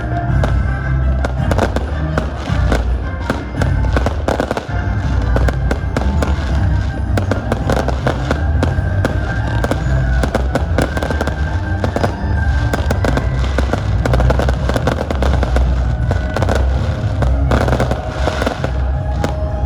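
New Year's fireworks display: a continuous run of bangs and crackling bursts, over loud music with a heavy bass.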